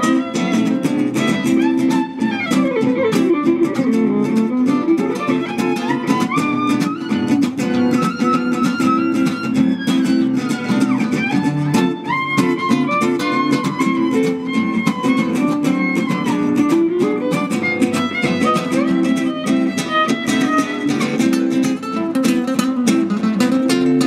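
Live acoustic music: two nylon-string classical guitars played together with a violin carrying a melody that slides in pitch at times.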